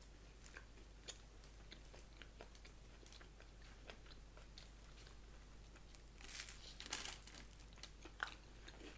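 Faint chewing of food close to the microphone, with small mouth clicks throughout and a louder, noisier stretch of chewing about six to seven seconds in.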